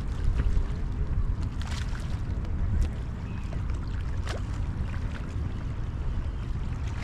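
Wind buffeting the microphone in a steady low rumble, over small waves lapping at a sandy shoreline, with a few light splashes.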